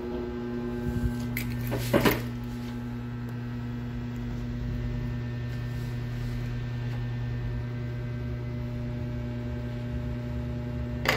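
Steady electrical hum from a running machine, with a short knock from handling about two seconds in.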